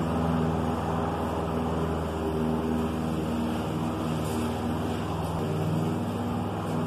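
Husqvarna LC 153S walk-behind lawn mower's single-cylinder Briggs & Stratton 675EX engine running steadily while cutting young grass. The engine note shifts slightly about five seconds in.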